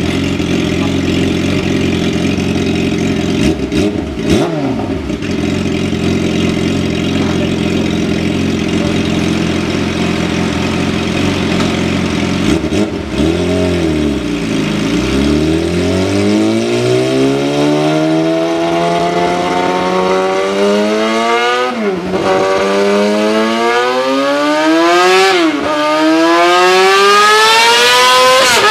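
Yamaha R6's 600 cc inline-four engine running steadily, with a brief rise and fall in revs about four seconds in. From about halfway it accelerates hard through the gears: the pitch climbs in long rising sweeps that drop abruptly at two upshifts.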